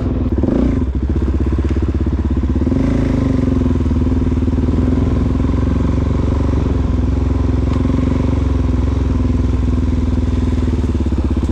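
Suzuki DR-Z400SM's single-cylinder four-stroke engine running at a steady, near-constant speed while riding a trail.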